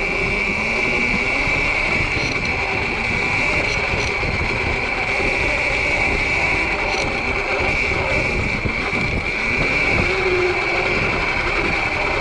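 Sur-Ron electric dirt bike riding, pulling away at the start. A steady high whine sounds over a constant low rumble of wind and terrain noise.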